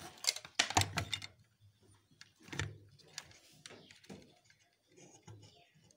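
Clicks, knocks and rustling of hands handling a CRT TV circuit board and pulling plastic wire connectors out of their sockets. A quick cluster of clicks comes in the first second, then a few more scattered knocks.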